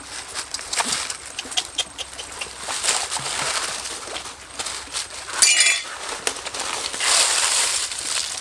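Dry leaves rustling and crackling on rock, with scattered clicks and taps. There is a stronger burst of rustling about five and a half seconds in and a longer one about seven seconds in.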